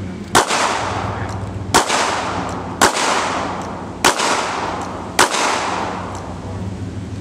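Five pistol shots from a Glock, fired at an unhurried pace about one every second or so, each crack followed by a ringing echo that fades away. A steady low hum runs underneath.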